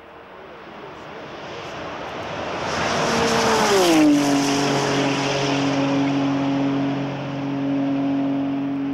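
A 1983 Porsche 930 Turbo's turbocharged flat-six engine approaching at high speed and growing louder. It passes about four seconds in with a rush of tyre and wind noise and a drop in pitch, then holds a steady note as it runs away down the road.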